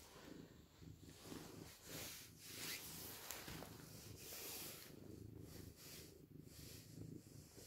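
Domestic cat purring faintly and steadily while it is being stroked.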